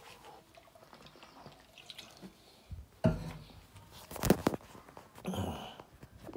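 Handling noise from a phone camera being moved about: faint rustling with two sharp knocks about three and four seconds in, then a brief rustle.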